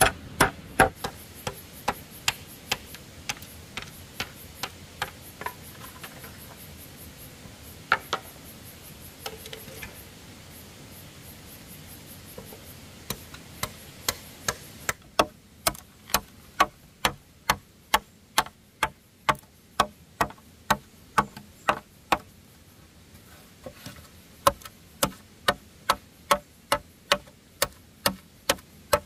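Machete blade chopping at a split bamboo half, sharp wooden knocks at about two or three a second, with a sparser, quieter spell in the middle.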